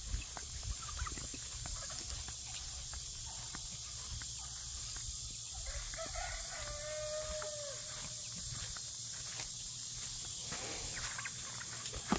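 A rooster crows once, about six seconds in, a call of about two seconds ending in a long held note. Footsteps through grass and a steady high hiss run underneath.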